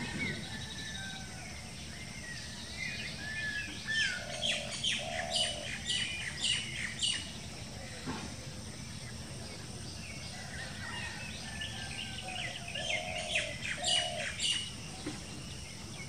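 A bird singing in two similar bouts, one about three seconds in and one about eleven seconds in. Each is a run of quick, sharp, high notes mixed with a few sliding whistles, over a steady low background rumble.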